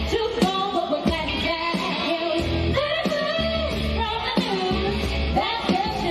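A woman singing live over loud amplified backing music with a pulsing bass.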